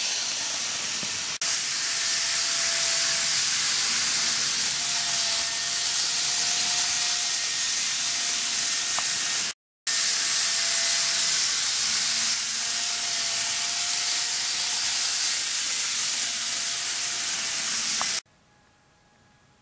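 N-gauge model of the Kyushu Shinkansen new 800 series running on its track: a steady hissing rush with a faint, slightly wavering motor whine. The sound breaks off briefly about halfway, then cuts to near silence shortly before the end.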